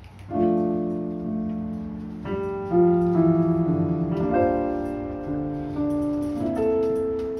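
Yamaha digital keyboard with a piano voice, playing a slow run of sustained chords that come in about a third of a second in and change every second or so.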